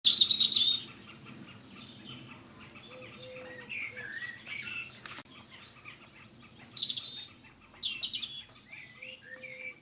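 Songbirds chirping and singing, with many short warbling calls overlapping, the loudest right at the start. A single sharp click about halfway through.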